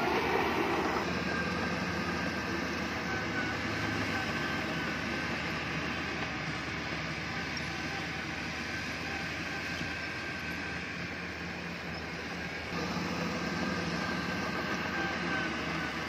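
Heavy diesel earthmoving machinery running steadily: an engine drone with a thin high whine over it. The sound shifts abruptly about a second in and again near the end.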